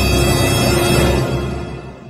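Music: a single held chord over a deep low rumble, fading out over the last second.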